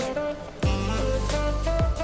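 Background music with a melody and a drum beat; a deep drum hit lands about half a second in and again near the end.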